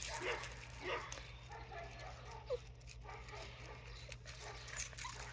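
Eight-week-old Newfoundland puppies making a few faint, short yips and whines.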